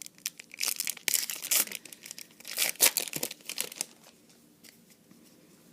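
Trading card booster pack wrapper being torn open and crinkled in the hands, rustling and crackling for about four seconds before it stops.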